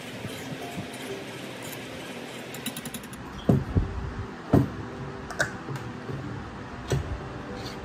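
Wire whisk stirring thick custard in a nonstick frying pan, with faint scraping and ticking. Then come three sharp knocks a few seconds apart, the loudest near the middle, as the whisk is put aside and things on the table are handled.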